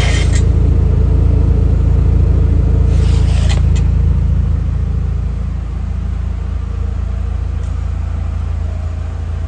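2002 Volkswagen Beetle 2.0L four-cylinder engine running with a steady low rumble, a brief rattly burst about three seconds in, then getting gradually quieter over the second half.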